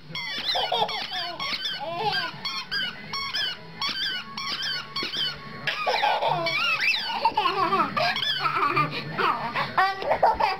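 Dog chewing a squeaky ball toy, making quick high squeaks over and over, with a baby laughing, more strongly in the second half.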